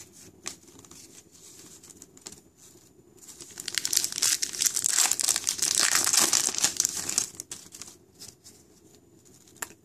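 Foil wrapper of a hockey card pack crinkling and tearing as the pack is opened: a dense crackle from about three seconds in until about seven and a half seconds, with a few light clicks before and after.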